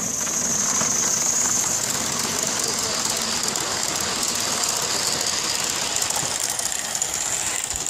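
Ride-on miniature railway train rolling past close by, its wheels rattling and clicking along the track, with a steady high hiss over it.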